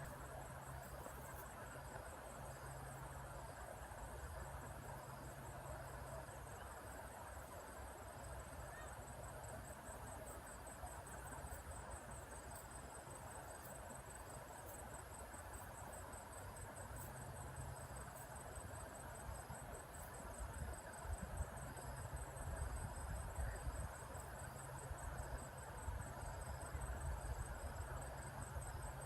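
Insects, crickets or similar, trilling steadily in a high, fast-pulsing chirr, over a low rumble that turns gustier in the last third.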